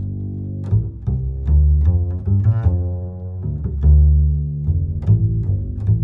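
Background music led by low strings: a deep bass line of notes with sharp attacks, each note held briefly.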